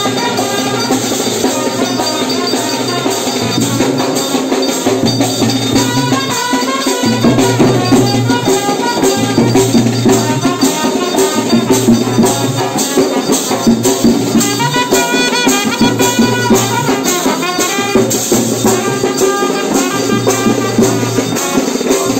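Traditional music for a Tulu daiva nema ritual: fast, steady drumming with rattling, jingling percussion and a melody that bends up and down on top.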